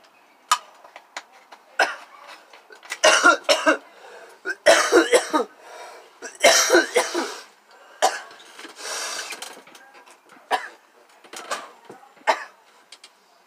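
A person coughing hard in rough fits, with three loud bouts of about a second each in the first half and lighter coughs after. Scattered short clicks and knocks come between the coughs.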